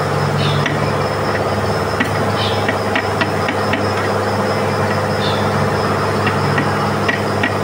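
A steady engine hum, like a vehicle idling nearby, runs under a scattering of light metallic taps and clicks from hand tools as a piston is worked out of a diesel engine block. A few short chirps come on top.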